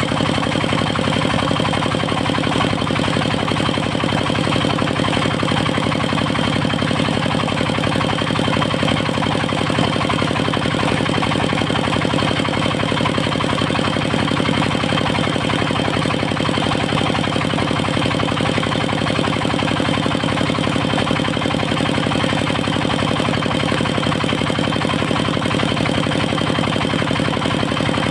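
Portable engine-driven circular sawmill running steadily, the engine and spinning saw at a constant pitch throughout.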